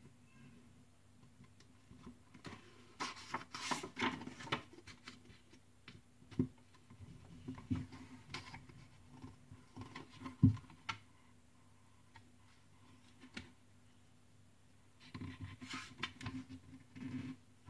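Pages of a paperback book rustling and flipping as it is opened and leafed through, in a few short flurries, with soft knocks of the book being handled and one louder knock about ten seconds in.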